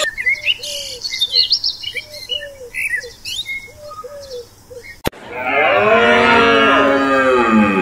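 Bird calls, a low arched note repeated in short groups under higher chirps. After a sharp click about five seconds in, a long, loud animal call takes over, rich in overtones and bending in pitch, falling at its end.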